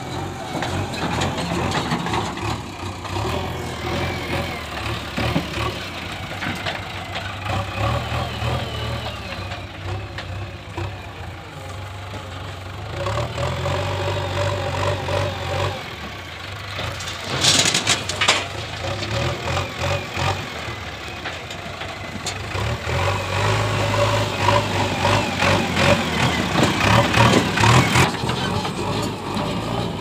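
JCB 3DX backhoe loader's diesel engine running and revving up and down in repeated surges as the loader works. A short rush of noise a little past halfway as the raised front bucket of soil is tipped into a tractor trolley.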